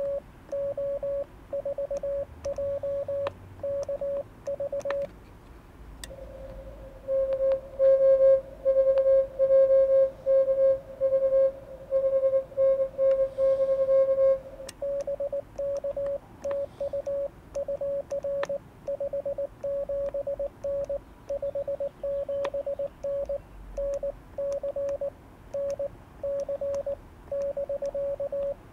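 Morse code from an HF SDR transceiver: a single steady-pitched tone keyed on and off in dots and dashes. At the start and end it is the operator's own CW sending, heard as the radio's sidetone. A louder run of Morse from about seven to fourteen seconds in is the other station replying on 20 meters.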